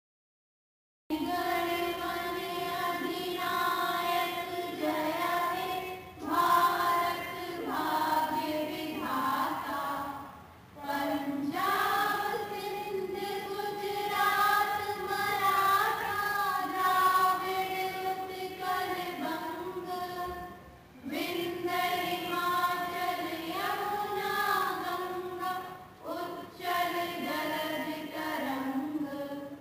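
A large group of schoolchildren singing together, starting about a second in, in long phrases of held notes with brief pauses between them.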